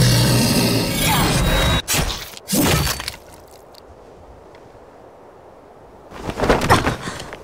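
A wolf snarling over dramatic music, then sharp impacts about two seconds in, after which the sound drops low for a few seconds.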